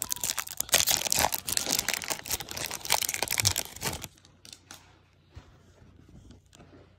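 Foil wrapper of a Topps Chrome Update baseball card pack crinkling and tearing as it is ripped open by hand. The crinkling stops about four seconds in, leaving only faint handling of the cards.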